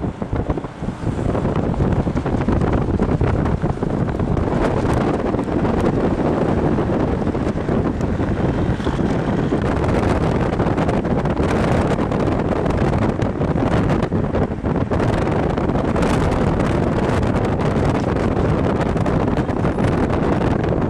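Loud, steady wind buffeting the microphone of a camera riding in a moving vehicle, with the vehicle's running and road noise underneath and frequent short gusts.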